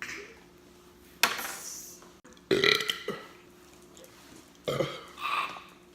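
A woman burping loudly three times: a sudden breathy burp about a second in, then two deeper, voiced burps.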